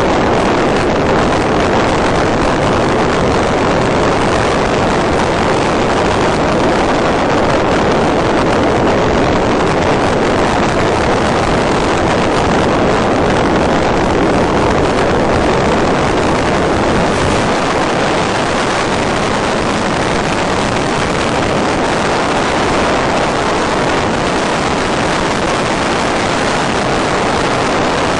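Steady rushing noise on the audio feed of a gliding FPV model plane, with no motor tone in it.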